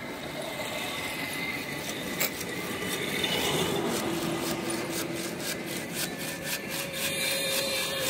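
Handsaw cutting through a bamboo pole in repeated back-and-forth strokes, about three a second in the second half, with one sharp knock about two seconds in.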